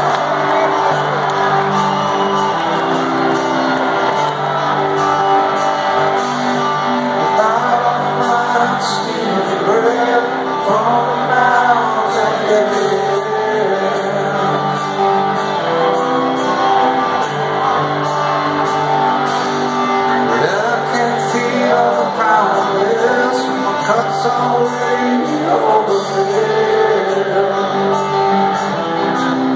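Live rock band playing a slow song, with strummed guitar and singing, recorded from the audience in an arena and carrying the hall's echo.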